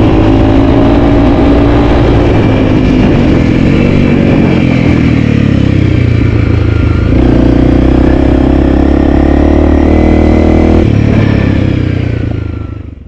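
Honda CRF300L's single-cylinder engine running as the dual-sport bike rides a dirt trail. Its note steps up about halfway through, drops back near the end, then fades out.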